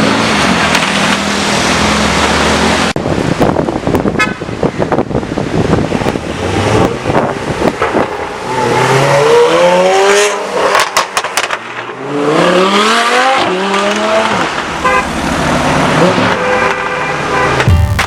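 Porsche 911 Carrera GTS flat-six through a loud IPE exhaust, revving with its pitch rising and falling several times, mostly in the second half.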